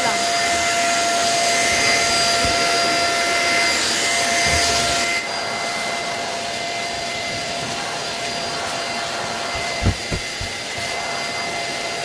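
Deerma DX700 handheld vacuum cleaner running steadily, a motor whine over rushing air. About five seconds in the hiss drops a little, and two light knocks come about ten seconds in.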